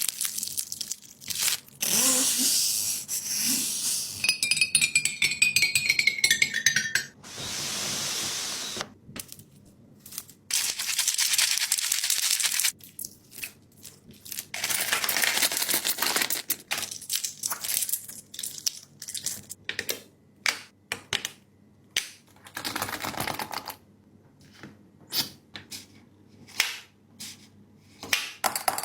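Hands working a fidget board's toys: irregular runs of sharp clicks, snaps and rasping slides with short pauses between, and a falling tone a few seconds in.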